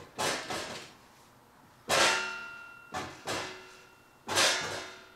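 Several sharp metal clanks from a sheet metal shear being worked, some in close pairs and roughly a second apart, each ringing briefly.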